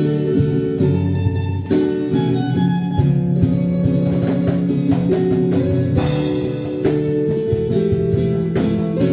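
Instrumental break of a song, guitar-led: plucked and strummed notes over sustained backing chords, with no singing.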